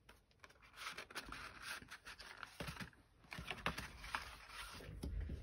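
Cardstock and paper rustling and scraping as a small paper gift box and its sleeve and cards are handled on a wooden tabletop, with a few light taps.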